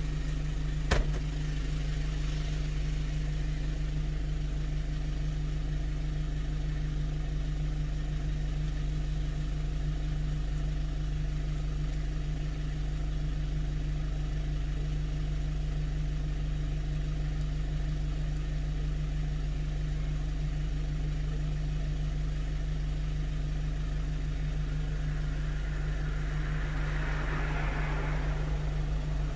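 One-ton truck's engine idling steadily, a low even hum. A sharp click comes about a second in, and a hiss swells and fades near the end.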